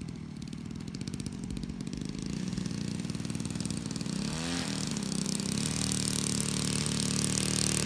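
Engine of a radio-controlled Hangar 9 Corsair model plane running, growing steadily louder, with a brief dip and recovery in pitch about halfway.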